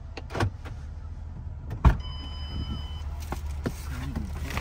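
Steady low vehicle hum, with several knocks, a loud one about two seconds in, followed by a brief high electronic beep lasting about a second.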